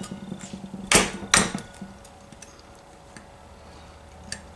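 Small cast iron skillet, held upside down, knocked twice against a plate about a second in, two sharp knocks in quick succession, to jar loose a cookie stuck in the pan.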